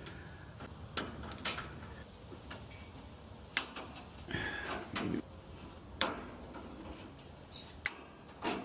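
Side cutters snipping the plastic ties that hold misting tubing to an air-conditioner condenser, a sharp click with each cut, about six in all, the loudest near the end. The tubing is handled and rustles between cuts.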